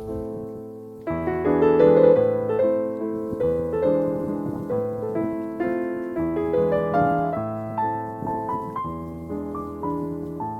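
Background music: a gentle solo piano piece, notes struck and left to ring in a steady flowing rhythm.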